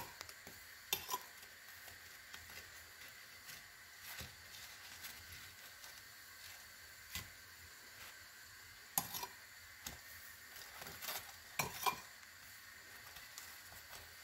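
A metal spoon clinking and scraping against a ceramic bowl as fried fritters are turned in cinnamon sugar. The light clinks are scattered, bunching into small clusters in the second half, over a faint steady hiss.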